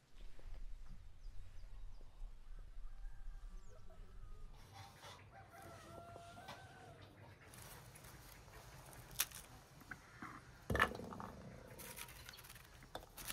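Chickens clucking faintly over a low steady background hum, followed by handling of pomegranates: scattered clicks and knocks as a knife cuts into the rind, the loudest a dull knock about eleven seconds in.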